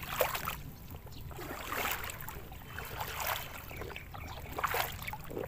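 Water sloshing in repeated surges about every second and a half, as of someone wading step by step through shallow floodwater.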